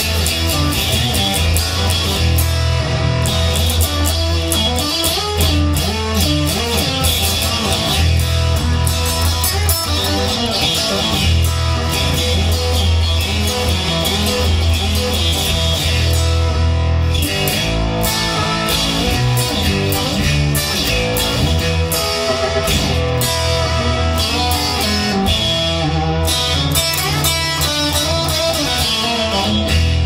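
Instrumental music led by guitar over a steady, heavy bass line.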